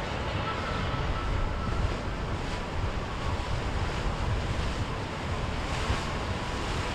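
Wind buffeting the microphone over the steady wash of waves, with a faint thin hum that may come from a passing boat.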